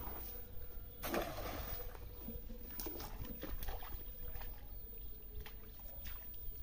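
A snail rake on a rope lands in a pond with a splash about a second in, followed by small water sounds and knocks as it is dragged back toward the bank by the rope.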